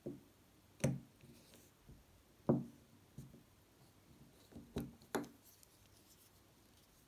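About six light knocks and clicks as turned wooden slimline pens are pushed into and pulled out of wooden log-slice pen stands and the stands are shifted on a wooden table. The two loudest come about one and two and a half seconds in.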